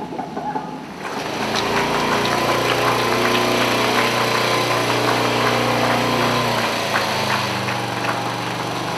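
Small engine running steadily, with light clicks and rattles over it; it comes in about a second in and shifts slightly in tone near the end.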